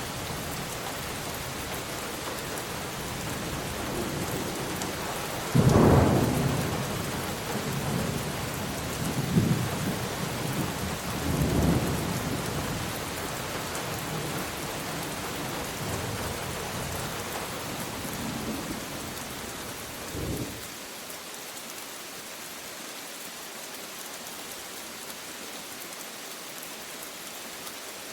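Thunderstorm: steady rain falling, with a sudden loud thunderclap about six seconds in followed by several rolling rumbles of thunder. The thunder dies away after about twenty seconds, leaving the rain alone.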